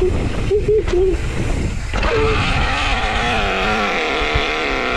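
Mountain bike rolling on a dirt singletrack with tyre and wind rumble. From about two seconds in, the disc brakes give a steady, wavering squeal as the bike slows.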